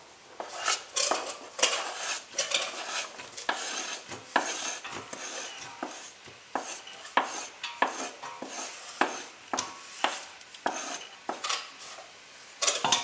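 Wooden spoon scraping and tapping chopped onion off a plastic cutting board into a pot: a string of sharp scrapes and knocks, about two a second.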